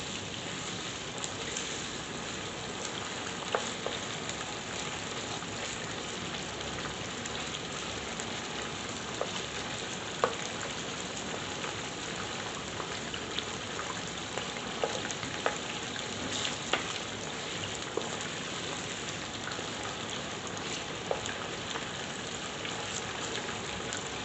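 Chicken pieces frying in plenty of hot oil in an open karahi, being browned golden: a steady sizzle with scattered sharp pops.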